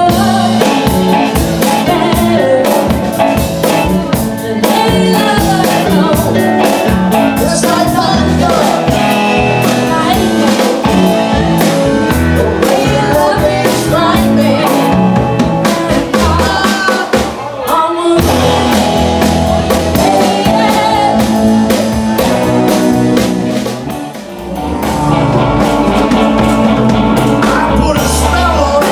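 Live band playing a song: a woman sings lead into a microphone over electric guitar, keyboard and drums, with a brief dip in loudness about 24 seconds in.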